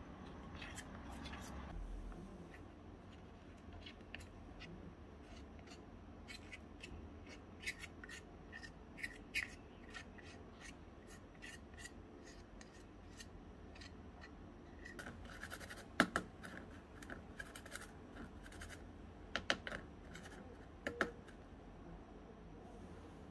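Small spoon stirring batter in a tiny steel bowl and scraping it out into a miniature cake tin: soft scraping with scattered light clicks of the spoon against metal, the sharpest tap about two-thirds of the way through.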